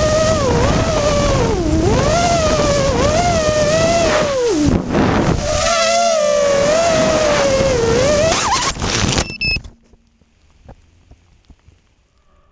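X210 FPV quadcopter's brushless motors and propellers whining close to the onboard camera, the pitch rising and falling with the throttle and dropping sharply about halfway through. Near the end a few knocks as it hits the ground, then the motors stop suddenly.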